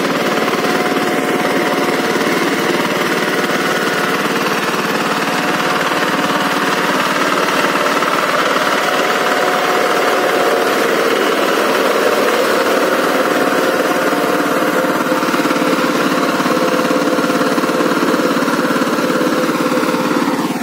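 Single-cylinder water-cooled diesel engine of a walk-behind power tiller running steadily under load as it puddles a flooded paddy field, its engine due for new piston rings.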